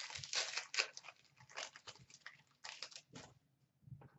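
A foil trading-card pack wrapper crinkling and crackling in the hands as it is torn open, in a run of irregular bursts that stops about three seconds in.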